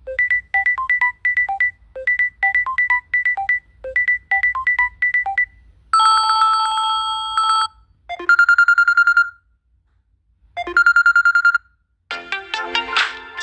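A run of electronic phone ringtones and notification tones: a short melody of quick beeps repeated about three times, then a held chime, then two short trilling rings with a pause between them, and another ringtone melody starting near the end.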